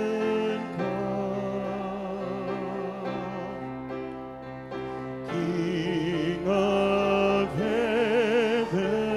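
Church choir singing a worship song with instrumental accompaniment. A held chord carries the first few seconds, then the voices come back in with vibrato about five seconds in.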